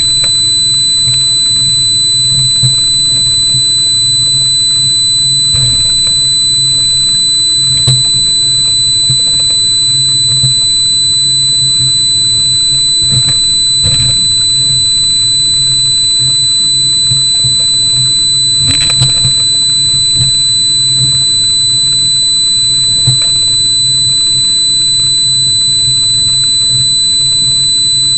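Yamaha 300 four-stroke outboards running steadily at cruising speed, a constant low drone, as the boat pounds through rough seas, with a few sharp knocks of the hull hitting waves, the loudest about two-thirds of the way through.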